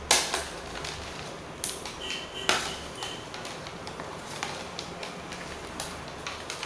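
Handling and opening a headset's packaging box: a few sharp knocks and scrapes of the box in the hands, the loudest right at the start and another about two and a half seconds in.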